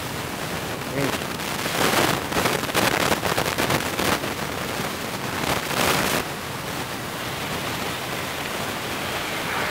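Rustling and crinkling for about five seconds, starting about a second in and stopping abruptly, over a steady hiss.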